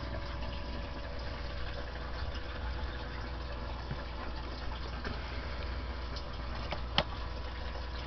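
Steady hum and hiss from a running CB radio setup with its small cooling fan, with a single short click about seven seconds in.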